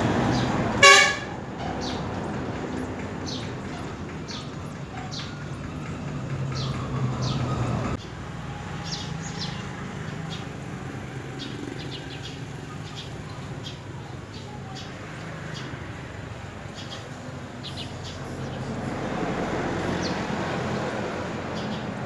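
A short vehicle horn toot about a second in, the loudest sound, over a steady low traffic rumble. Brief high bird chirps come scattered throughout.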